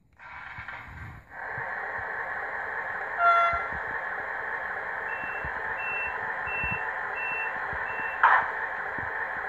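Model TGV's sound decoder playing through its small onboard speaker: a steady electric-train running hum starts just after the beginning, with a short horn toot about three seconds in. A run of about five short high beeps follows, then a brief loud burst of noise near the end.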